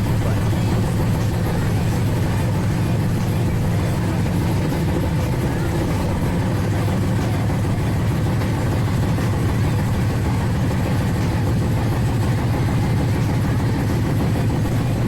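Steady low rumble of a passenger train, heard from on board.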